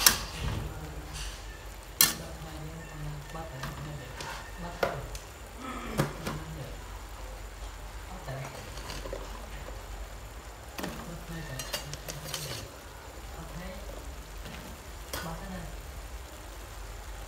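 Beef stir-frying in a steel wok, sizzling, while a spatula scrapes and clanks against the pan every few seconds; the sharpest clanks come at the start and about two seconds in.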